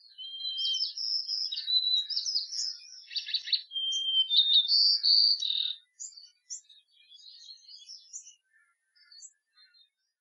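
Birdsong: a small songbird's chirps, whistled notes and quick trills, dense for about the first six seconds and then scattered and fading out.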